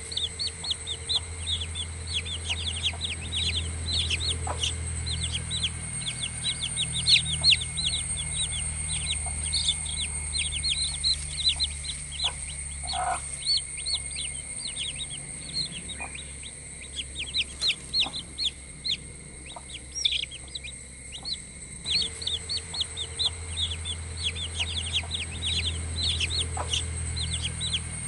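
Several newly hatched chicks peeping nonstop: rapid, high calls that each drop in pitch, with fewer of them for a while in the middle.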